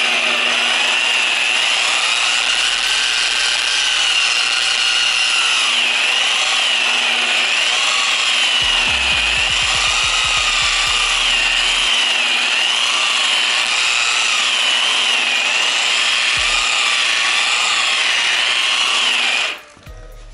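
Inexpensive dual-action polisher running with compound on a foam pad against car paint, cutting out wet-sanding marks. Its steady motor whine wavers up and down in pitch as the polisher is pressed and moved, and it switches off abruptly near the end.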